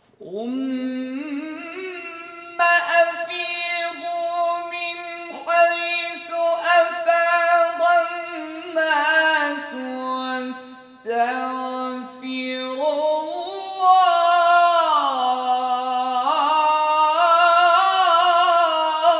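A man chanting Quran recitation in the ornamented tajwid style, in a high, strong voice. He draws out long melismatic phrases that slide up and down in pitch, with a few short breaks for breath.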